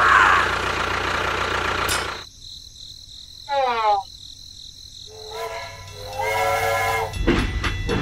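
Toy train sounds: a steady mechanical running noise that cuts off about two seconds in, a short falling whistle about halfway, then a longer held train whistle, followed by rougher running noise near the end.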